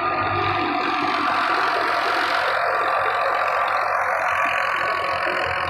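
Wheat thresher running while threshing: a constant, dense mechanical noise with a high whine, over a low engine hum.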